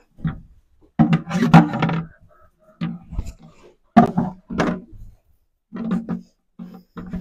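Irregular knocks and thuds against a galvanized sheet-metal nesting box, as a hand reaches into its holes and bumps it. Each knock leaves a short low ringing.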